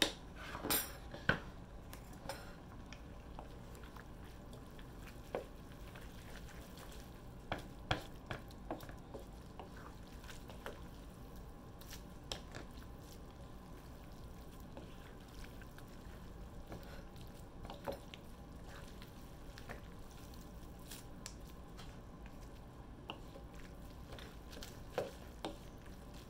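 Wooden utensils stirring and tossing pasta in a nonstick electric wok: soft scrapes, squishes and occasional light taps on the pan, scattered a few seconds apart.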